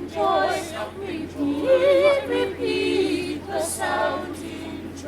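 A choir singing a Christmas carol without accompaniment, the voices holding sustained notes with vibrato.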